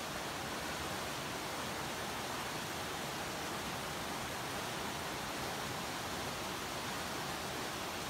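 Fast mountain river rushing over rocks and boulders in white-water rapids, a steady, even rush of water with no breaks.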